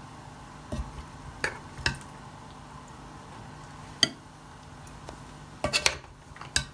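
Metal utensil clinking against cookware: about half a dozen irregular clinks, the sharpest one about four seconds in with a brief ring, and a quick cluster near the end. A steady low hum runs underneath.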